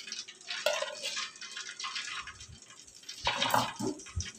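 Broccoli tipped into a pot of boiled vegetable soup and stirred in with a spoon: irregular splashing of the soup, with light knocks of the spoon against the aluminium pot.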